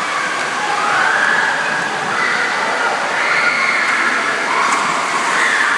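Indoor water-park din: a steady rush of water and splashing with children's shouts and shrieks over it.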